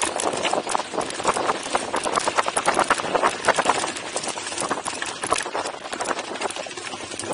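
Mountain bike rolling over a rough, stony dirt track through dry grass: a dense, irregular clatter of knocks and rattles from the bike, with the tyres crunching over the ground, over a steady hiss.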